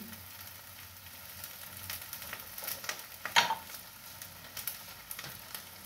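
Termites frying in oil in a pan, sizzling steadily with scattered small crackles and one sharper crack a little past the middle.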